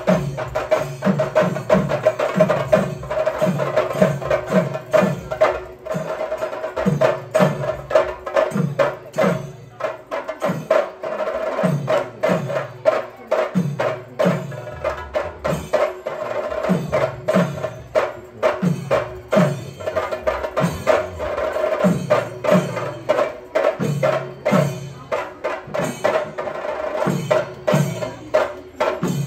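Theyyam ritual drumming on chenda drums: fast, driving stick strokes with deep strokes that drop in pitch about two a second, over a steady held tone.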